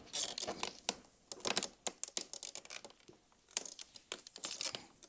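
Irregular small clicks, creaks and rustles of plastic as an LED lighted radiator grill panel is leaned and pushed into a Honda Gold Wing's fairing grill by gloved hands.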